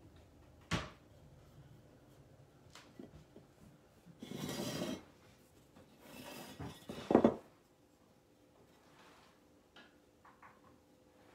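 Handling sounds at a craft table: a sharp tap about a second in, two short stretches of rubbing and rustling, and a louder knock about seven seconds in as the small ceramic truck is set down on the table.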